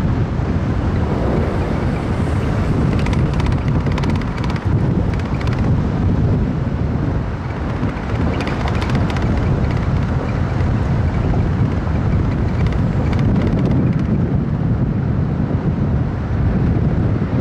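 Steady wind rumble on the microphone over city street and traffic noise.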